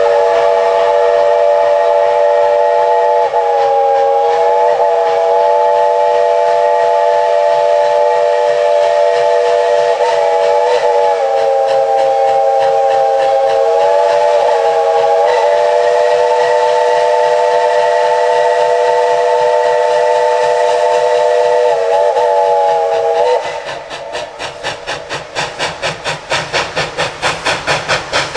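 Steam locomotive No. 190's multi-chime whistle blown in one long, continuous blast of over twenty seconds. Its chord wavers briefly a few times and then cuts off suddenly. The engine's exhaust then chuffs in a steady beat, about three a second.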